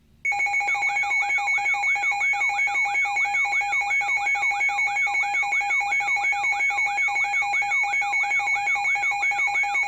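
Weather radio alert alarm sounding for a tornado warning: it switches on abruptly from silence and holds steady piercing tones under a rising-and-falling warble that repeats about two and a half times a second.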